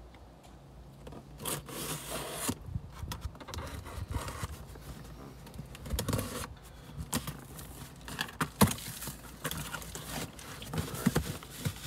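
Packing tape on a cardboard box being slit and torn open, then the cardboard flaps scraping and rustling as they are pulled apart, with sharp clicks along the way.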